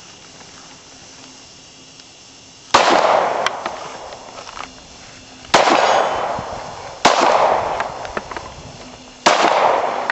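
Four 9 mm pistol shots from a Glock 19, unevenly spaced, each followed by a long echo that dies away over a second or two.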